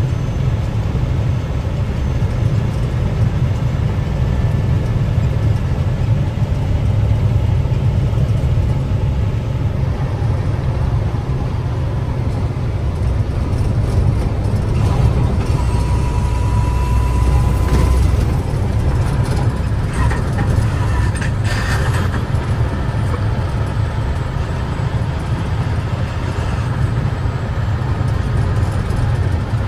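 Cab noise of an International farm truck driving on a gravel road: a steady low rumble of drivetrain and tyres. A few short rattles or knocks come about two thirds of the way through.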